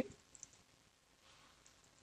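A few faint computer keyboard keystroke clicks, scattered and quiet, over near-silent room tone.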